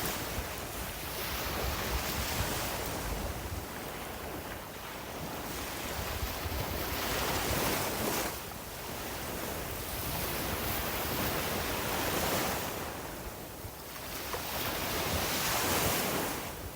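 Sea waves breaking and washing up a beach, swelling and fading about every four to five seconds, with some wind buffeting the microphone.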